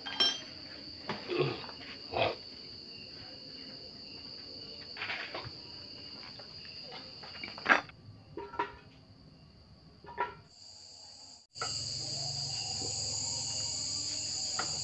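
Steady cricket chirping, with scattered sharp knocks and clinks of metal engine parts being handled as the engine is fitted into the motorcycle frame. After a brief dropout about 11 seconds in, the chirping returns louder over a low hum.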